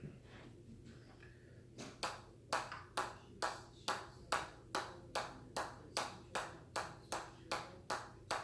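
Steady run of sharp hammer taps with a short metallic ping, about two and a half a second, starting about two seconds in and kept up in an even rhythm.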